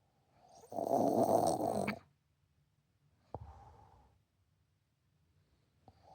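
A woman snoring heavily. A loud snore lasts about a second, followed a second later by a short, quieter breath, and the next snore begins near the end.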